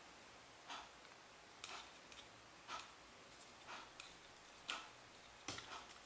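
Faint, regular ticking about once a second, like a clock's second hand, with a few light clicks near the end from small plastic parts being handled.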